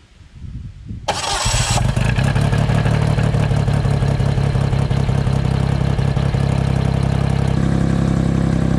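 John Deere Gator 825i's three-cylinder gasoline engine being started on a new starter. About a second in, the starter cranks briefly, then the engine catches and runs steadily at idle, turning the CVT clutches and belt.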